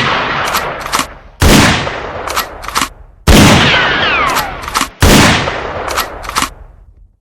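Lever-action rifle firing shot after shot, about one shot every two seconds, with the lever worked between shots: two quick metallic clicks follow each report. A falling whine trails the middle shot.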